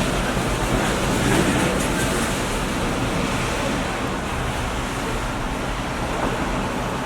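Steady background roar and hiss with a constant low rumble, no distinct events standing out.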